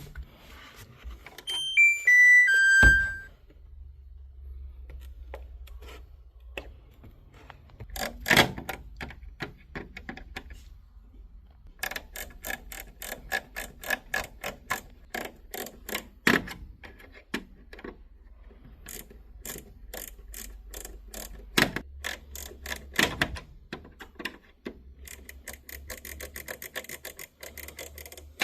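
Kenmore front-load washer's control panel: a falling four-note beep about two seconds in, then runs of quick clicks and short beeps as the cycle selector knob is turned, over a steady low hum. The knob is being tested after a fault was treated by spraying its mechanism with disinfectant.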